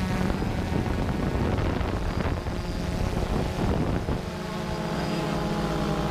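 Camera drone's motors and propellers buzzing, with wind on its microphone; about four seconds in the sound settles into a steady hum.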